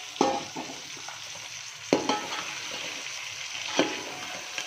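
Marinated chicken pieces sizzling in hot oil with browned onions in a metal pot, while a metal spoon stirs them and knocks against the pot three times.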